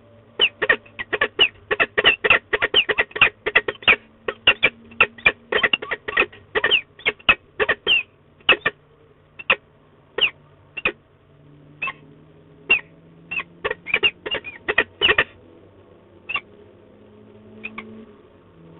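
Peregrine falcon calling: a fast run of short, sharp calls, about four or five a second, that thins out to scattered single calls after about eight seconds.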